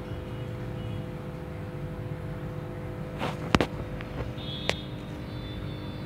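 Steady background hum with a few sharp clicks, the loudest about three and a half seconds in and another near five seconds.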